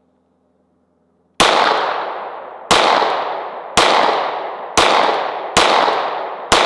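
Glock 19 9mm pistol firing six shots, roughly a second apart, each trailing off in a long echo. The once-frozen pistol cycles every round without a stoppage.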